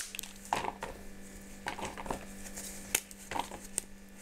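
Pieces of potting bark being broken by hand: a string of short, irregular cracks and snaps, several in a few seconds.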